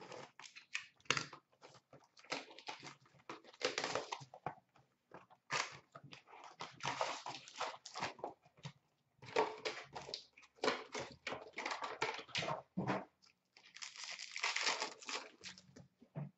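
Trading card pack wrappers being torn open and crinkled by hand, along with the card box and cards being handled. The crackling comes in bursts with short pauses.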